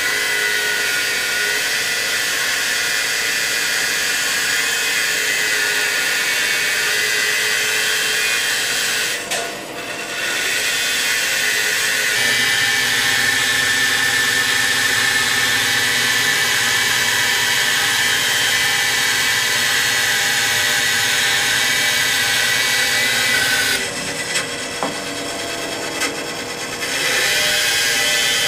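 Band saw running and cutting a curve through a thick mahogany block, a steady machine hum under the noise of the blade in the wood. The cutting sound eases twice, briefly about a third of the way in and for a few seconds shortly before the end.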